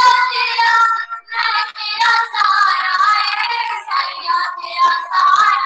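Young children singing a Sikh devotional song, their voices holding long, wavering notes with short breaths between phrases about a second in.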